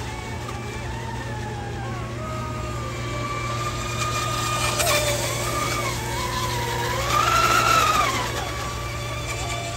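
High-pitched whine of electric RC racing boats at speed, the pitch rising and falling with throttle, with a sharp crack about halfway through. The whine swells and rises in pitch as one boat runs close past, about seven seconds in.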